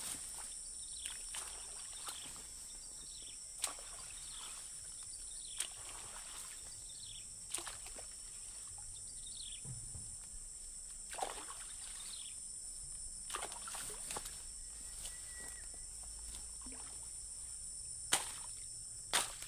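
Machete swishing and chopping through swamp grass and reeds, a short sweeping stroke every second or two, a few cutting sharply with louder hits near the end, some striking wet vegetation and mud at the water's edge. A steady high-pitched drone runs underneath.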